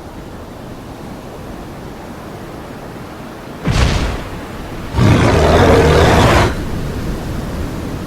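Monster-movie sound effects over a steady rumbling background: a sudden loud crash a little under four seconds in, then a loud roar lasting about a second and a half.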